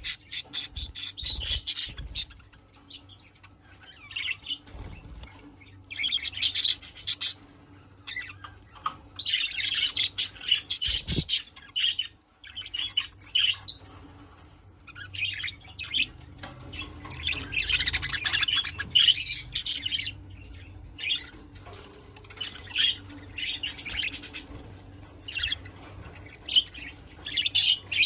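Budgerigars chirping and chattering in quick high bursts, busy spells of twittering broken by short quieter gaps, with some harsher squawks.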